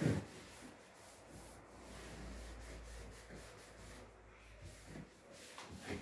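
Dish towel wiping the inside of a refrigerator dry, a soft rubbing, with a sharp knock at the start and a smaller one near the end.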